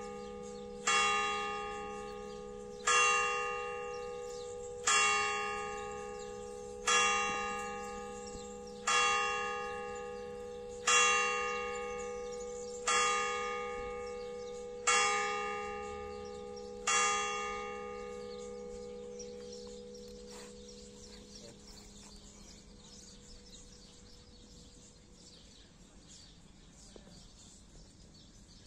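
The A-flat hour bell of a five-bell church tower, electrically struck, tolling the hour of noon. Nine even strokes of the same bell come about two seconds apart, each ringing on into the next. After the last stroke the ringing fades away over a few seconds.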